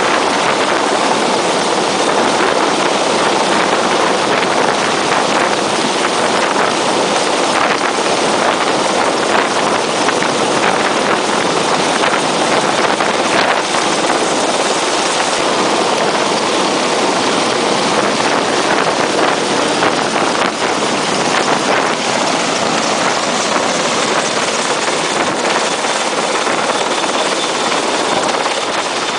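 AgustaWestland AW101 Merlin helicopter hovering: steady, loud rotor and turbine noise mixed with wind buffeting the microphone in the rotor downwash.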